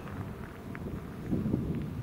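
Wind buffeting the microphone: an uneven low rumble with a stronger gust about a second and a half in.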